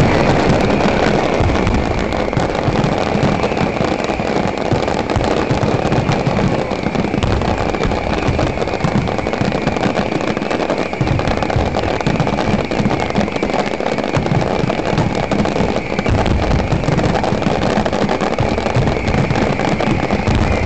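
Fireworks finale: many shells bursting at once in a continuous run of overlapping bangs and crackling, loud and without a break.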